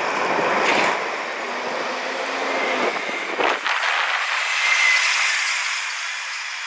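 Dennis Trident Alexander ALX400 double-decker bus driving past close by and pulling away, its engine and road noise loud, with a brief high whine about five seconds in.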